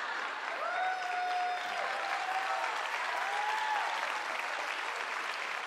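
Studio audience applauding steadily, with a few faint pitched calls heard over the clapping in the first few seconds.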